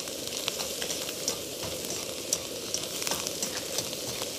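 Napa cabbage and scrambled egg sizzling as they are stir-fried in a frying pan, with scattered small clicks and scrapes of chopsticks working the food against the pan.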